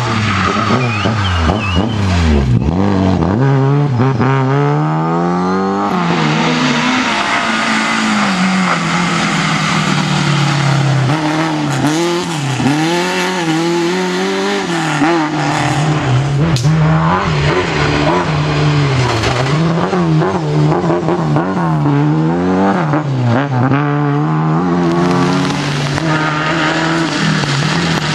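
Rally car engine at full effort on a stage, revs climbing and dropping repeatedly through gear changes and lifts, with some tyre squeal.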